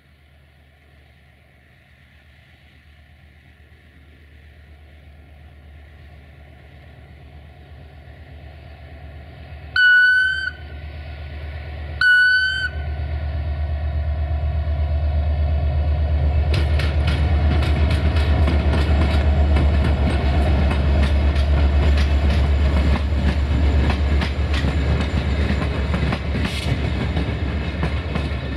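CFR class 64 GM diesel locomotive approaching with its engine growing louder. It sounds two short horn blasts about two seconds apart, around ten and twelve seconds in. From about sixteen seconds in, the locomotive and its coaches clatter past over the station's points and rail joints.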